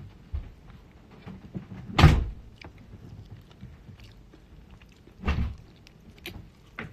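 Close-up eating sounds from someone eating chicken wings by hand: small mouth and finger clicks, with two louder thumps about two seconds and five seconds in, the first the loudest.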